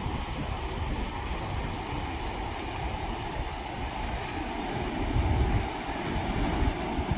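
Steady rushing of a fast mountain river, with low rumbling wind gusts on the microphone that are strongest about five seconds in.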